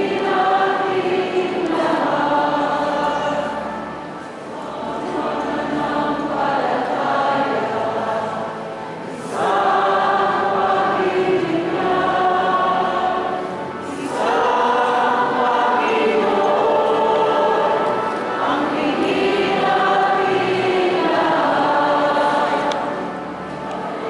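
A choir singing in long sustained phrases, with brief breaks between phrases about every four to five seconds.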